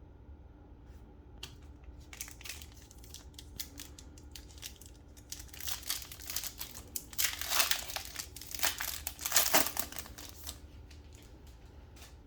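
Plastic trading-card pack wrapper crinkling and rustling in an irregular run of crackles as it is handled and torn open. It is loudest in two bursts in the middle and later on, then stops a little before the end.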